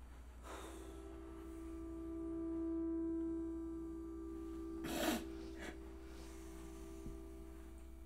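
A single held musical note from the film score swells and then slowly fades. About five seconds in there is a sharp, breathy snort or sniff, with a smaller one just after, from a distressed man.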